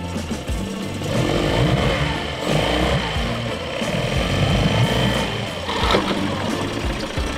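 Tiller-steered outboard motor on an inflatable dinghy running, picking up about a second in. It is running steadily now that a new fuel line has cured an air leak that had been starving it.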